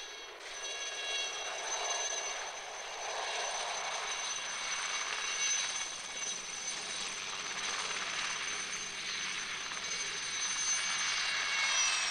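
Alouette III helicopter's Turbomeca Artouste turboshaft whining at a steady high pitch over the rushing of its rotor as it hovers low. The whine dips slightly in pitch near the end.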